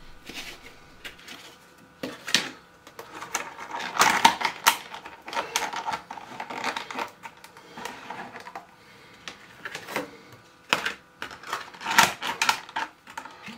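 Irregular clinks, taps and knocks of kitchen utensils against cookware and crockery, some leaving a short ring, with a few louder knocks about four seconds in and again near the end.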